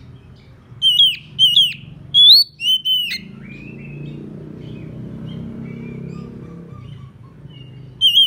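Oriental magpie-robin giving loud, clear whistled calls, each note sweeping sharply up and down, in about four quick phrases about a second in, with another near the end. These are the bird's territorial calls to a rival.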